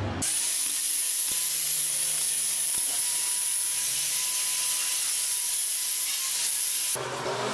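Handheld angle grinder with a sanding disc running against a steel pipe: a steady high hiss with a thin whine. It starts abruptly just after the beginning and stops abruptly about a second before the end.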